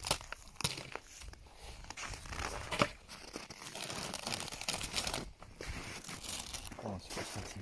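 Plastic crinkling and rustling in irregular crackles as a beehive's clear plastic cover sheet is peeled back and a plastic-wrapped feed patty is handled and laid on the frames.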